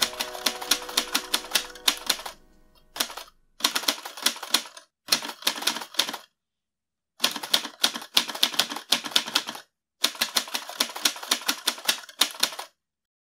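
Typewriter keys clacking in fast runs, with short pauses between the runs, stopping shortly before the end. The held last notes of a song fade out under the first couple of seconds of typing.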